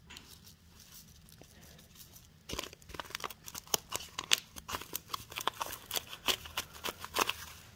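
Paper packet of taco seasoning mix being torn open and shaken out, a run of quick crinkling clicks starting about two and a half seconds in.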